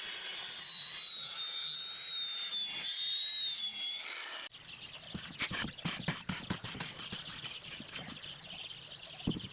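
A small power tool whines at a high, slightly wavering pitch for about four and a half seconds, then the sound cuts abruptly to a run of irregular clicks and taps from work on wood.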